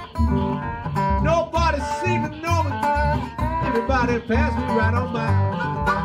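Acoustic blues played by a trio: a small acoustic guitar picked in open G, a washtub bass giving a steady low thump about twice a second, and harmonica notes bending up and down over them.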